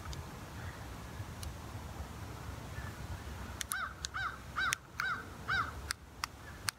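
A bird calling five times in a quick series, each call rising and then falling in pitch, starting about halfway through. A few sharp clicks come during and after the calls.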